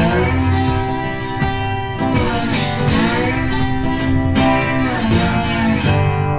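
Background music led by strummed acoustic guitar, with some notes bending in pitch.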